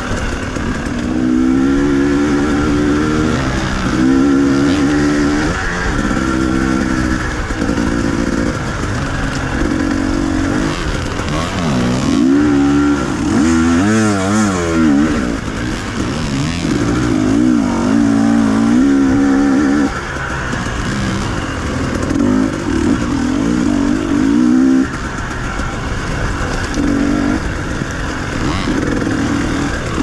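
Dirt bike engine being ridden hard, the throttle opening and closing again and again so the engine note keeps rising and falling. For a few seconds around the middle it wavers up and down rapidly.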